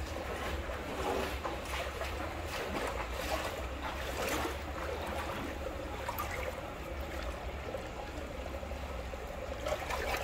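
Water trickling and splashing steadily on a wet concrete floor, with small scrapes and splashes now and then as a hand tool works at an elephant's hind foot.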